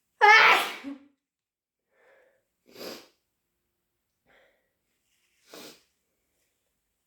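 A person's loud, voiced, deliberately induced sneeze with a falling pitch, a fraction of a second in. It is followed by two much quieter, short breathy bursts, around three seconds and five and a half seconds in.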